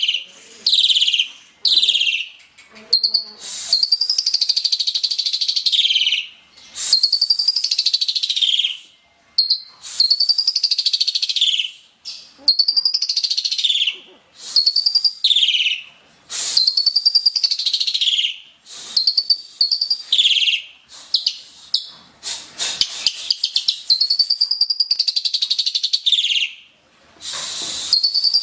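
Asian pied starling (jalak suren) singing steadily: a long run of loud phrases, about one every one and a half to two seconds, each mixing an arching whistled note with harsh, rasping chatter.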